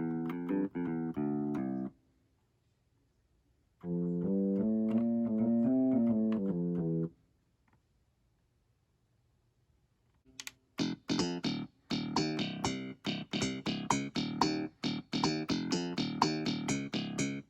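Akai MPK Mini Play MK3 mini keyboard playing its built-in sounds. Short, quick keyboard notes stop about two seconds in. After a pause comes a held, connected keyboard phrase for about three seconds. After a longer pause, a run of fast, sharp, plucked-sounding notes begins about ten seconds in.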